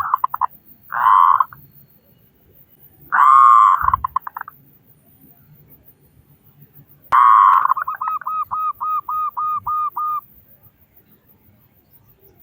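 Zebra dove (perkutut) cooing: short loud coo phrases, the later ones trailing into quick repeated notes, the last a run of about nine even notes.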